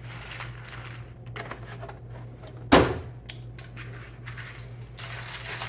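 Handling of a milk jug and cereal bowl: small clicks and light rustling, with one sharp knock about halfway through, over a steady low hum.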